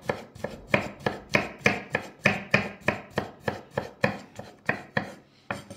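Large kitchen knife chopping thin slices of raw zucchini into strips on a wooden cutting board: a steady run of sharp chops, about three a second, that stops just before the end.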